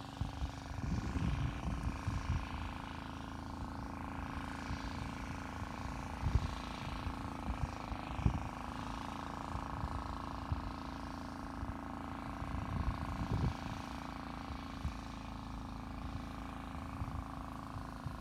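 A steady engine-like hum, with irregular low rumbling surges of wind or handling on the microphone.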